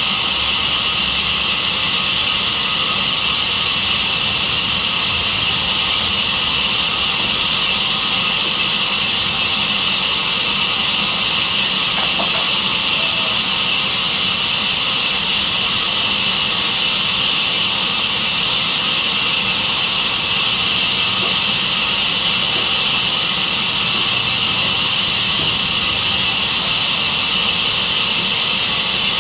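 Sawmill band saw running steadily: a loud, even hiss with no change in level.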